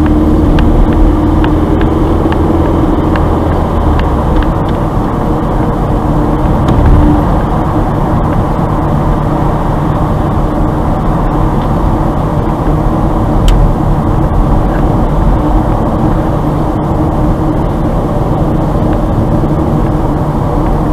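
Steady road noise of a car driving at city speed, heard from inside the cabin: tyre rumble and engine hum.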